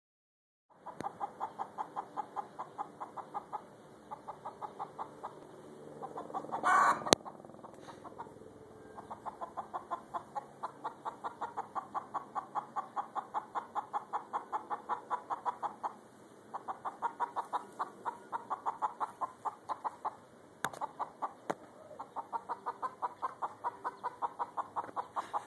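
A chicken clucking in long, rapid runs of evenly spaced clucks, about six a second, with short pauses between runs. About seven seconds in there is one louder, harsher call.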